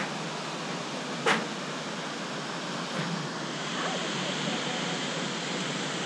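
Steady rushing of a waterfall, with one sharp click a little over a second in.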